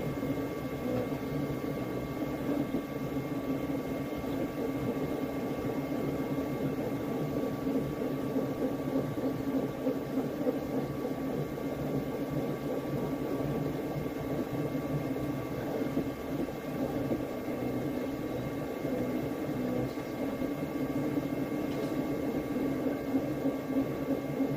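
Flashforge Adventurer 5M Pro 3D printer running, its stepper motors and fans whirring as the print head lays down a first layer. The sound is a steady mechanical whir with a few thin, constant whining tones over it.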